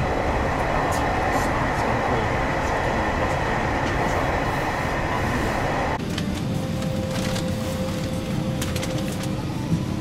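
Steady running noise of a train heard from inside the carriage, a dense rumble with a faint high whine. About six seconds in it cuts off suddenly and gives way to a different, quieter steady hum with a faint low tone.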